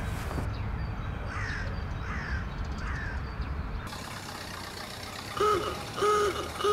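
Three short falling crow caws over a low rumble. After a cut, a car horn honks three times in quick succession, louder than anything before it.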